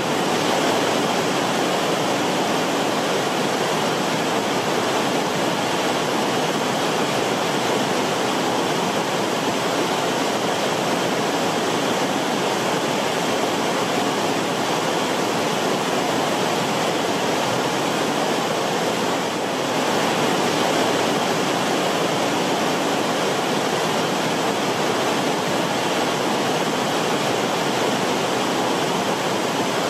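Steady rush of flowing river water, with a brief slight dip about two-thirds of the way through.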